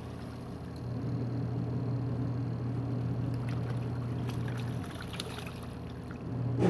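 LG twin-tub washing machine running its wash cycle: a steady motor hum with water churning, the hum stopping briefly near the start and again about five seconds in before the motor starts up again.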